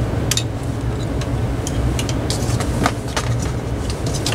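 Scattered small clicks and taps of plastic phone-handset parts being handled during reassembly, bunched between about two and three seconds in, over a steady low hum.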